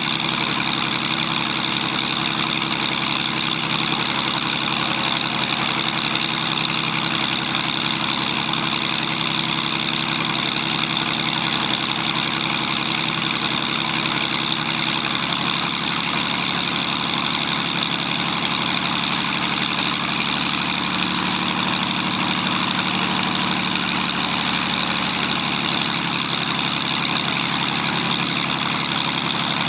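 Zlin Z-526 F's inverted six-cylinder air-cooled engine idling steadily on the ground with the propeller turning, during its pre-take-off engine check. The engine note shifts slightly about halfway through.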